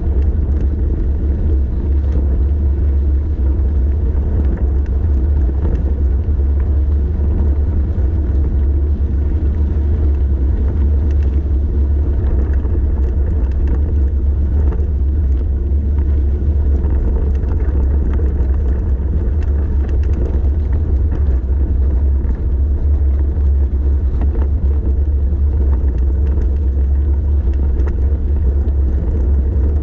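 Wind buffeting the microphone during a downhill bicycle ride: a loud, steady low rumble, with faint scattered ticks from the bike over the road surface.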